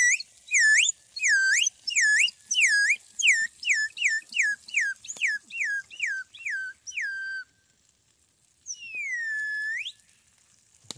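Kariri-Xocó bird-call whistle, a slide whistle blown while its plunger is pulled and pushed: a quick string of about fourteen swooping notes, each dipping and rising, that come faster and faster. After a short pause comes one long note that falls, holds and then rises.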